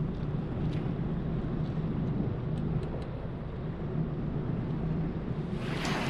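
Steady low rumble of a boat's engine running, mixed with wind on the microphone; a louder rush of wind near the end.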